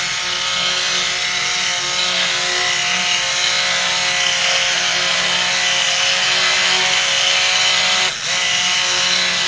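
Stick blender running on high, submerged in a batch of soap oils and lye, mixing the lye in for hot-process soap. The motor gives a steady whine and cuts out briefly about eight seconds in.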